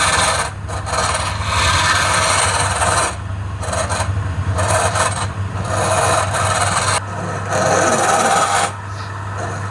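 Wood lathe running with a steady motor hum, while a tool or abrasive rasps against the spinning workpiece in repeated strokes of a second or two, with short breaks between them.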